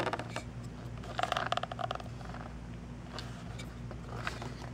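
Clear hard-plastic clamshell tray holding a CPU cooler being handled and turned in the hands: a click at the start, a short burst of rapid crackling clicks about a second in, then a few scattered clicks.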